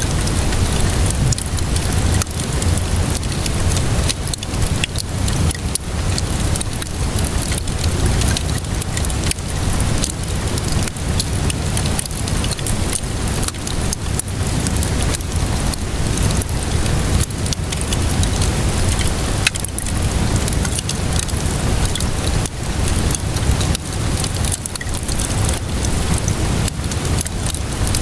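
Steady rainfall mixed with a wood fire crackling, full of small irregular pops and clicks over a low rumble.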